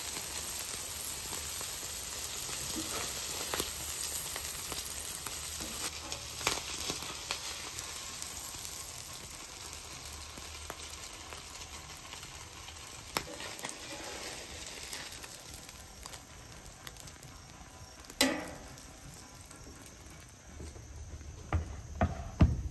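Beef smash burger patties sizzling on a hot flat-top griddle, the sizzle slowly dying down. Now and then a metal spatula scrapes and clicks on the griddle as patties are lifted off, one louder scrape well past the middle, and a few knocks come near the end.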